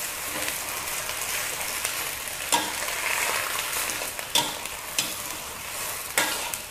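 Cut cabbage, with fish sauce just added, sizzling as it is stir-fried over high heat in an aluminium wok. The spatula gives four sharp scrapes and knocks against the pan.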